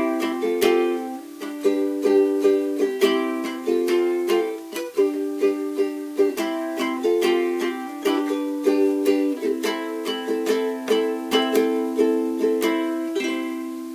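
Cordoba ukulele strummed in a steady rhythm, a chord pattern played without singing. Near the end a last chord is left to ring and fade.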